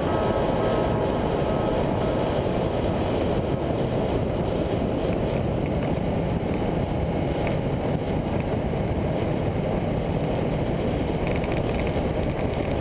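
2009 Kawasaki Ninja 650R ridden at a steady cruising speed: a constant rush of wind and road noise over the bike's parallel-twin engine, heard from a GoPro mounted on the bike.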